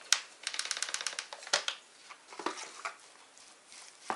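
Peppering and mixing minced meat in a bowl: a quick run of light clicks and rustles about half a second in, then a few separate scrapes of a spoon working through the mince against the bowl.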